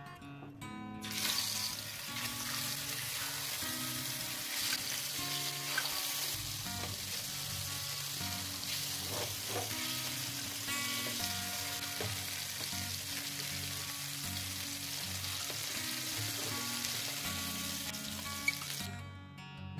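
Pieces of hilsa fish sizzling as they fry in hot oil in a pan, a dense steady hiss that starts about a second in when the fish goes into the oil and cuts off near the end.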